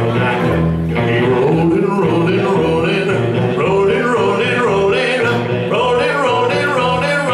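A live country band playing, with a man singing loudly over upright bass and electric guitar.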